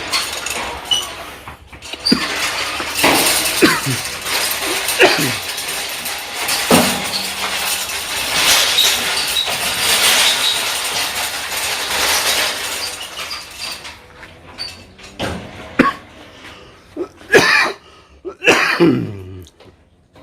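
Speed Queen clothes dryer's metal parts being worked by hand, with rattling and scraping and scattered sharp knocks and short squeaks through most of it, then a few separate knocks near the end.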